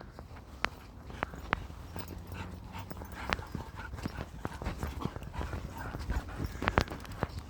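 Belgian Malinois puppy moving about, with many irregular taps and clicks of its footfalls.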